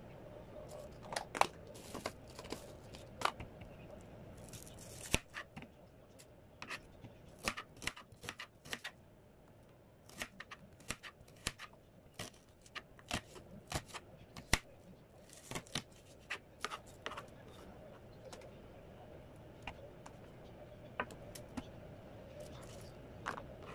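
Kitchen knife slicing onion and tomato on a plastic cutting board: a run of sharp, irregular taps as the blade strikes the board, with a brief pause near the end.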